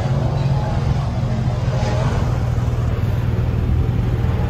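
An engine running steadily, a low, even rumble.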